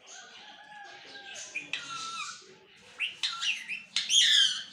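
Pet parrot vocalizing: a softer stretch of chatter, then a run of sharp rising-and-falling calls that grow louder, the loudest near the end.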